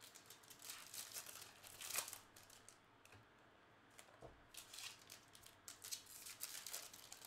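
Faint crinkling, tearing and clicking of trading-card packaging being handled and opened, in two spells with a short lull between.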